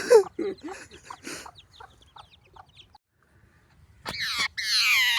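Chickens clucking, tailing off into a few short calls. After a brief pause, loud high-pitched squawks with falling pitch start near the end.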